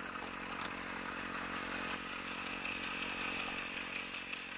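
Small radio-controlled model diesel locomotive running along garden-railway track toward the camera, giving a steady engine-like drone that fades a little near the end.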